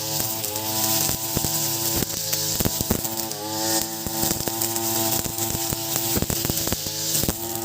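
Ogawa 26cc brush cutter engine running at high revs with 3.0 mm serrated nylon trimmer line spinning on a trimmer plate, cutting grass. The engine pitch dips briefly under load twice, and many sharp ticks sound throughout.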